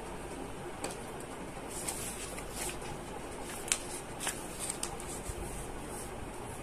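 A loose sheet of paper sliding and rustling across a charcoal-pencil drawing as it is drawn off, in a run of short brushing scrapes with one sharp tick midway, over a steady faint hiss.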